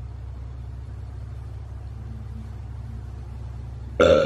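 A steady low hum with nothing else over it, then about four seconds in a brief, loud vocal sound from a woman with food in her mouth.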